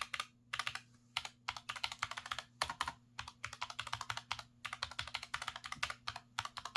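Typing on a Redragon K618 low-profile mechanical keyboard with brown switches: quick runs of keystroke clacks in several flurries with short pauses between them.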